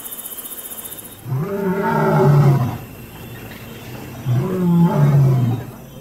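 A lion roaring: two long, deep calls, the first starting about a second in and the second about four seconds in.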